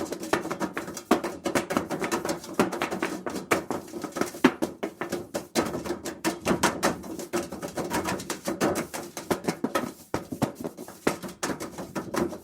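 Sheet-metal ductwork struck over and over: a dense, irregular run of knocks and bangs, several a second, each leaving a hollow metallic ring inside the duct.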